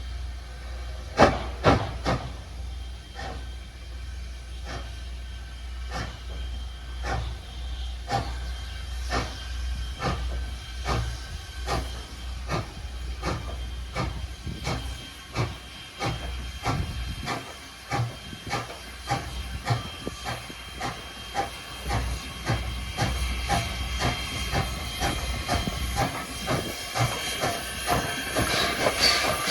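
Steam locomotive CN 89, a 2-6-0 mogul, working away under steam: sharp exhaust chuffs with hissing steam. The chuffs quicken from about one a second to two or three a second as the engine picks up speed, with two loud chuffs about a second in.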